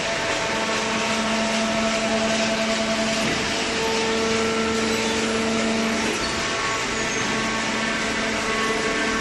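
Hydraulic baler machine running: a steady, loud mechanical noise with a humming whine whose pitch shifts about three seconds in and again about six seconds in.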